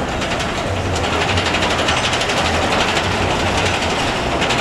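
Schwarzkopf steel roller coaster train running along its track: a steady, fast, dense clatter of wheels and track.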